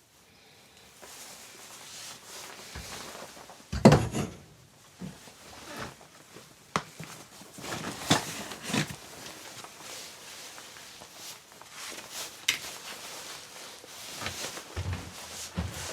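Irregular knocks, clunks and short scrapes of objects being handled, with one heavy thump about four seconds in.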